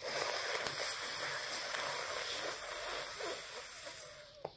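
A long, steady hiss of air drawn in through clenched teeth, as in sitkari pranayama breathing. It starts abruptly, lasts about four seconds and cuts off with a short mouth click near the end.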